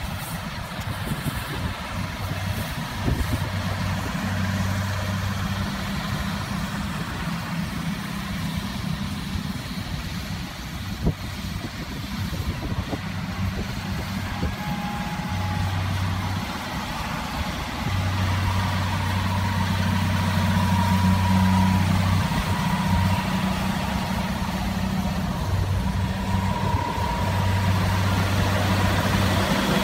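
Massey Ferguson 6290 tractor running with a Krone Comprima CF 155 XC baler-wrapper working behind it: a steady engine drone with a low hum that comes and goes, louder in the second half.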